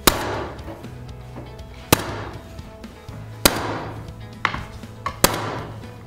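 Manual flooring stapler struck hard with a mallet four times, about one to two seconds apart, each blow a sharp crack that drives a heavy-duty staple through old fire hose into cedar boards. Two lighter knocks come between the last two blows.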